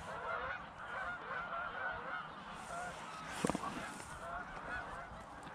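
A flock of geese honking, many overlapping calls throughout, with a brief knock about three and a half seconds in.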